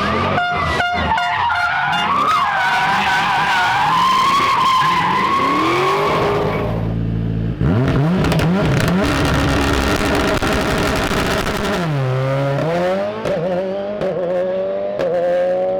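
Rally cars driven flat out on a stage: engines revving hard, rising and falling through the gears, with a rapid string of pops and cracks from the exhaust in the first second or so. About halfway through the sound changes abruptly to a second car revving and changing gear, with tyres skidding on the surface.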